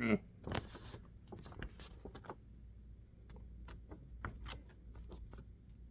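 Faint rustling, crinkling and small ticks of a sheet of paper being handled and held up for a pocket-knife slicing test, with a short papery swish about half a second in.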